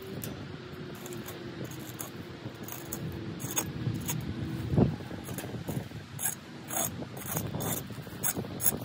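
Hand trowel scraping and scooping dry soil out of a raised garden bed: a run of short, irregular scrapes, with one heavier thud about five seconds in.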